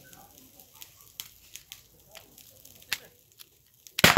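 A few faint sharp clicks, then a single loud crack near the end as the Umarex T4E HDR 50 .50-calibre CO2 revolver fires, with a short fading tail.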